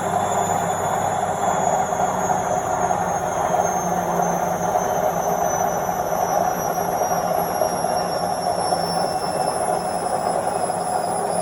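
Washing machine in its spin cycle: a steady rushing hum from the spinning drum, with a thin high motor whine that slowly falls in pitch.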